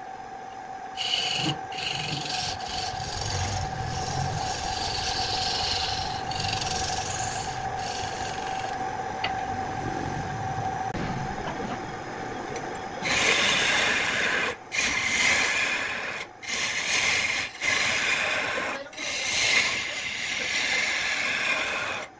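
Wood lathe spinning a wooden vase blank while a hand-held turning chisel cuts and scrapes it, with a steady hum underneath. Lighter scraping in the first half, then louder cutting strokes with short breaks from about halfway.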